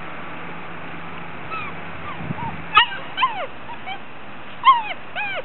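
Gordon Setter puppies, six weeks old, yipping and whimpering: a string of short, high-pitched yelps that each drop in pitch, starting about a second and a half in, with the loudest ones near the middle and near the end.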